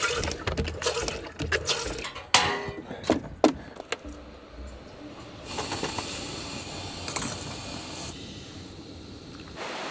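Clinks, clicks and rattles of small hard objects being handled for the first few seconds, then a steady hiss.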